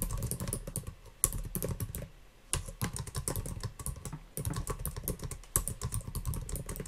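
Typing on a computer keyboard: quick runs of key clicks, broken by a couple of brief pauses.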